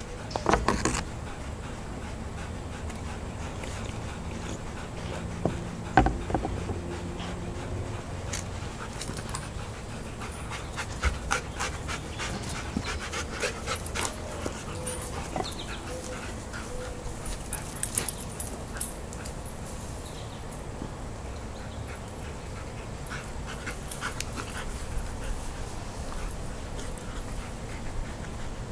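Dogs panting, with a few brief whimpers around the middle. Scattered clicks and knocks run throughout, the loudest a thump about six seconds in.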